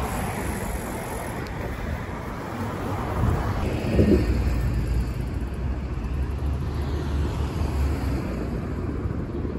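Street traffic noise, with a vehicle passing and its rumble swelling to the loudest point about four seconds in.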